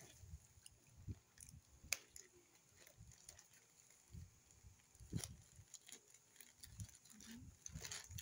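Faint crinkling and tearing of a plastic courier pouch being picked open by hand, with a sharp click about two seconds in and another about five seconds in.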